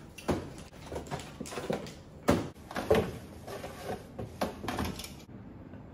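Groceries being put away in a refrigerator: a run of irregular knocks, clunks and scrapes as a jar and a cardboard case of soda cans are set on and pushed along the shelves, stopping a little after five seconds in.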